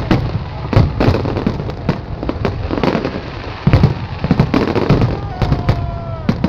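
Fireworks display going off: a dense run of sharp bangs and pops at irregular intervals over a continuous rumble of distant bursts.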